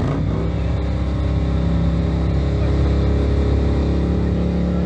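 A steady motor hum at a fixed pitch that starts suddenly and cuts off near the end, over a low rumble.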